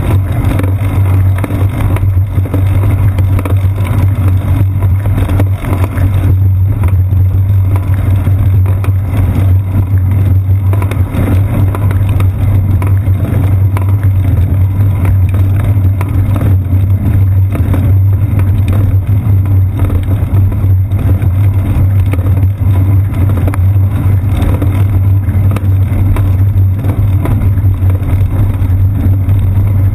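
Steady low rumble of riding noise from a moving bicycle, picked up by a camera mounted on the seat post: wind on the microphone and road vibration from the tyres on asphalt, unchanging throughout.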